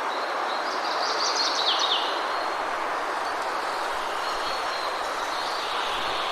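A small songbird gives a quick burst of high, falling chirps about a second in, over a steady rushing background noise.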